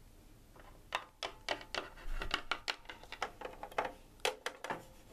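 Irregular light clicks and taps of small plastic toy figures and playset pieces being handled and moved by hand, starting about a second in.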